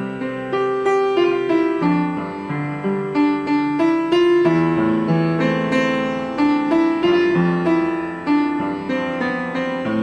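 Piano music, with notes struck one after another and dying away.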